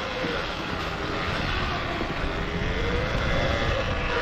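Riding noise from a bike on a rocky trail: a steady rush of wind and rolling noise, with a faint drone that slowly rises and falls in pitch.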